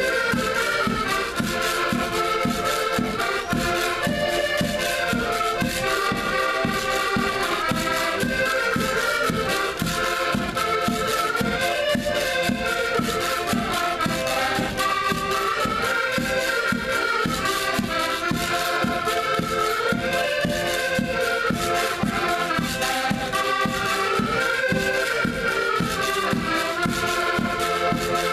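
An ensemble of accordions playing a traditional Portuguese tune together: a melody carried on top over a steady, evenly pulsing bass accompaniment.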